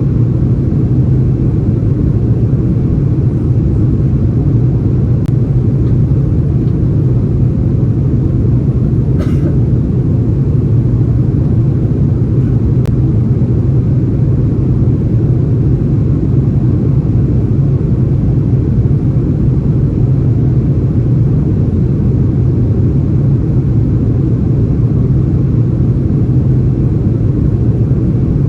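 Airbus A330-343 cabin noise in flight: a steady low rumble of engines and airflow that does not change, with one brief faint click about nine seconds in.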